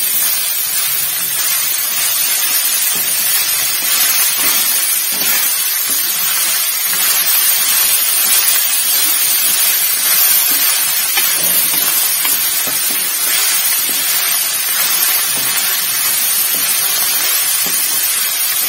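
Diced bottle gourd sizzling steadily in hot oil in a kadhai as it is stirred with a wooden spatula, while the vegetable is frying in its spices.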